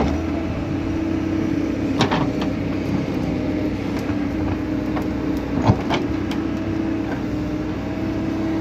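XCMG backhoe loader's diesel engine running steadily while its backhoe arm works the bucket into stony soil and brush, with a few sharp knocks, the loudest a little over five seconds in.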